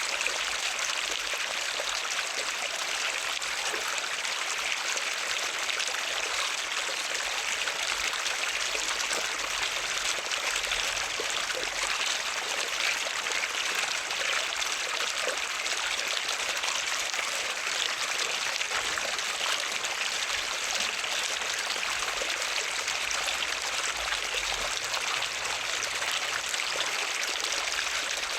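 Running water flowing steadily, an even rush with no breaks or changes.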